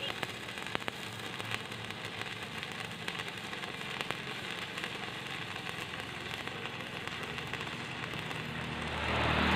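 Stick-welding (shielded metal arc) electrode arc crackling steadily while a straight bead is drawn along thick steel plate, with occasional sharper pops. It grows louder near the end.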